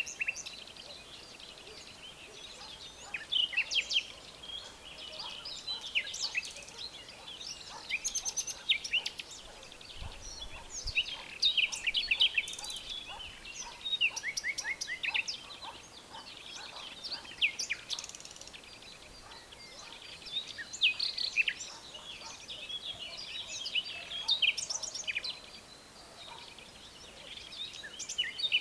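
Several songbirds singing and calling at once: a busy chorus of short chirps, quick trills and falling notes, overlapping and coming in bursts every second or two.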